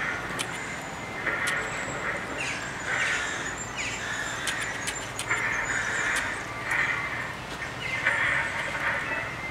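A bird's harsh calls, repeated roughly once a second, each about half a second long.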